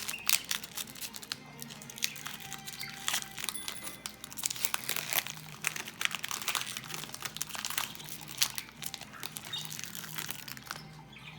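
A foil trading-card pack wrapper being torn open and crinkled by hand, a dense run of sharp, irregular crackles that is loudest in the first second.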